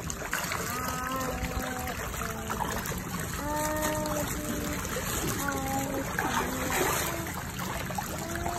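Water splashing and churning as a crowd of fish thrash at the surface, feeding on thrown food. Voices can be heard over it.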